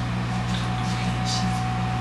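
Steady electrical machine hum with a thin high whine over a constant hiss.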